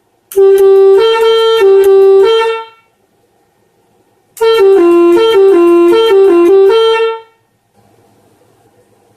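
Telolet air horn played by a multi-tone horn module: two short tunes of quick stepping notes, each lasting about two and a half to three seconds, with a pause between them. A faint low hum follows near the end.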